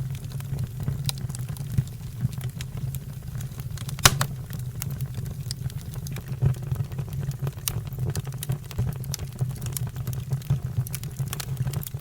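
Fire crackling, with many small pops and one louder pop about four seconds in, over a steady low rumble.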